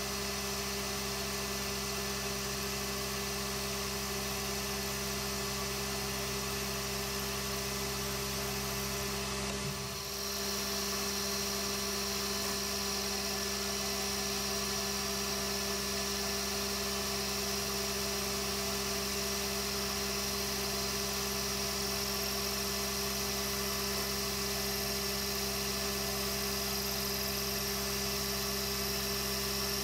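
AL960B metal lathe running steadily while turning the outside of an aluminium flywheel blank, the tool skimming it to true it up. A steady machine hum with a high hiss, dipping briefly about ten seconds in.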